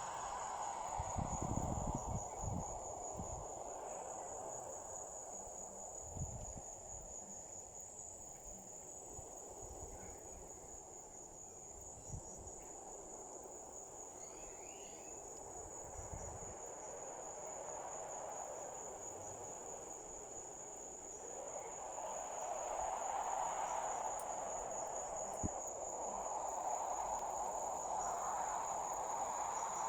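Crickets chirring steadily in a continuous high-pitched trill. Beneath them a lower rushing noise swells about two thirds of the way through, and a few soft low thumps come early on.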